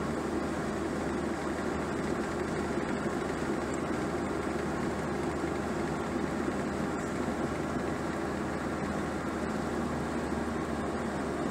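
Steady road and engine noise heard inside the cabin of a car driving along at a constant speed.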